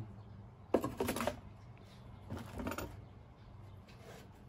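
Cardboard shipping box being handled and moved aside, giving two short bursts of scraping and rustling, about a second in and again about two and a half seconds in.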